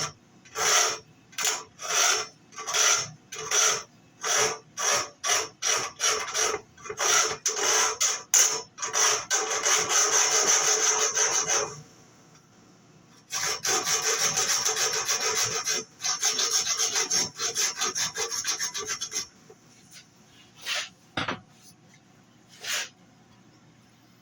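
Hand rasp filing a notch into a steel band saw mill blade where a tooth has broken off, making a space for the sharpener's pusher to hook onto. Quick back-and-forth strokes, about two a second, then two longer runs of steady filing with a short pause between, and a few single strokes near the end.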